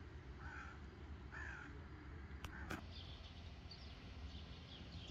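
A bird cawing three times, short harsh calls about a second apart, with two sharp clicks around the third caw. Faint high chirping of small birds follows, over a steady low rumble.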